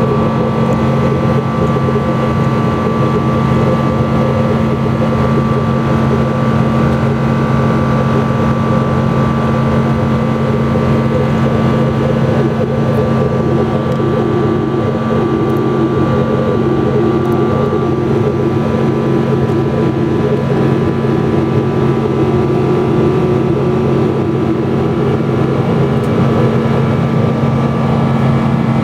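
Steady cabin drone of a Boeing 777-200ER in flight, heard from a window seat beside the wing: the Rolls-Royce Trent engines' low hum with a few steady tones over an even rush of air.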